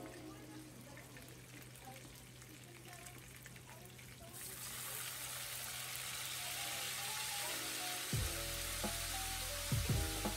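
Chicken livers tipped from their soy marinade into hot oil in a wok: a sudden sizzle starts about four seconds in and holds steady as the livers half-fry. Background music plays throughout, with a bass beat coming in near the end.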